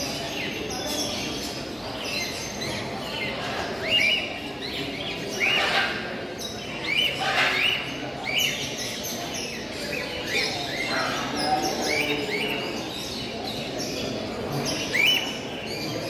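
Many caged birds calling, among them cockatiels: short rising chirps and whistles every second or two over a steady background din.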